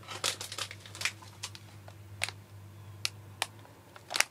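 Plastic snack bag crinkling as it is handled: irregular sharp crackles, a cluster in the first second, a few scattered later and a louder one near the end.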